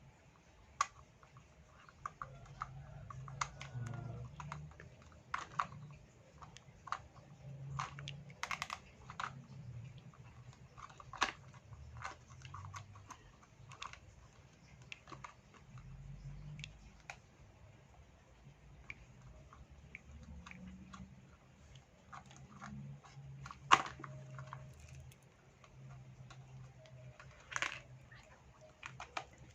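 Toy fruit-cutting pieces and toy knife being handled: scattered light clicks and taps of small plastic parts, with a sharper knock about 24 s in and another near 28 s.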